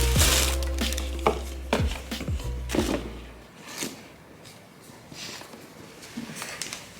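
Background music with deep bass notes that slide down in pitch; the bass drops out about three and a half seconds in. A few sharp clicks sound over it.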